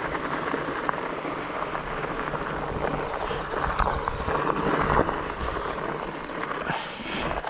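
Norco Bigfoot fat bike's wide tyres rolling over a gravel rail-trail, a steady crunching hiss with a few small ticks.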